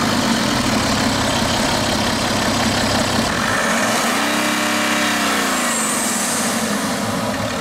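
BMW 530d's six-cylinder inline turbo diesel idling just after being started, heard from the open engine bay. About four seconds in, the engine note rises and falls back once.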